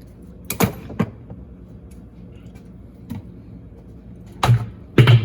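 Sharp knocks and clunks of Speed Queen top-load washer parts being handled and set in place during reassembly: single knocks about half a second in, at one second and at three seconds, then two heavier clunks near the end.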